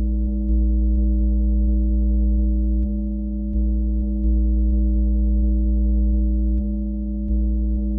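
Electronic ambient music: a sustained synthesizer drone chord over a deep bass that steps louder and softer a few times, with faint ticks here and there.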